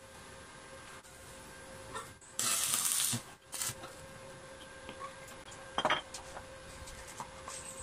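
Stick welder tack-welding steel gate bars: a burst of arc hiss lasting under a second, about two and a half seconds in, then a brief second burst. A metal clink near six seconds.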